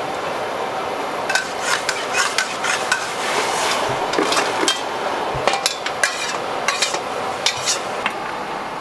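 Metal spatula scraping and clanking against a steel wok: an irregular run of sharp clinks and scrapes that starts about a second in and keeps going until near the end. Under it is a steady hiss, fitting the lit gas wok burner.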